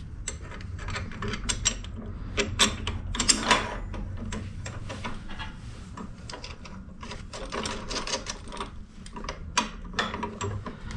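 Irregular metallic clicks and clinks of nuts, bolts and steel brake rod linkages being fitted and tightened by hand on a 7.25-inch gauge steam locomotive's brake gear, over a steady low hum. The loudest clinks come a few seconds in.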